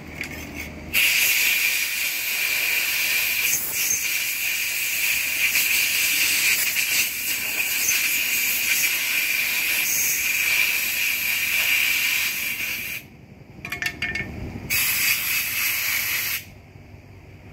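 Strong, steady hiss of a pressurised jet from a hose held against the pump head of a portable electric power sprayer. It runs for about twelve seconds, cuts off with a few clicks, then comes back in a shorter burst near the end.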